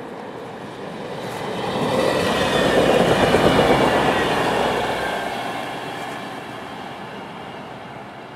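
DB Class 628 diesel multiple unit passing at speed on snow-covered track. The rush of the train swells to a peak about three to four seconds in, with a thin high whine, then fades as it pulls away.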